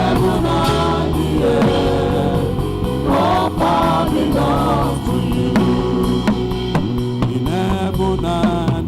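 Gospel music with a drum kit, bass drum and snare keeping the beat under held bass notes, and voices singing over it.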